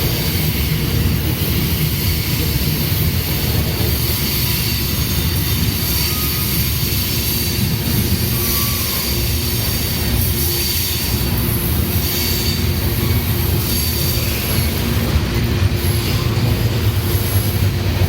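Union Pacific freight train rolling past with a steady low rumble, and high-pitched wheel squeal coming and going.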